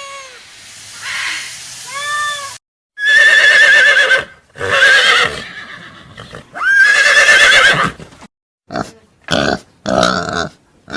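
A cat meowing twice, then, after a short break, a horse whinnying: three long, loud, quavering neighs, followed by several short calls.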